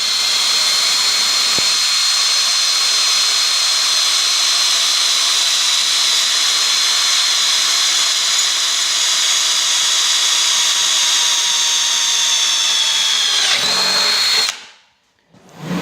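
Porter-Cable 20-volt cordless drill running at steady high speed while boring a hole through the metal snow blade, with a constant high whine. It bogs down slightly, picks up again, then stops about a second before the end.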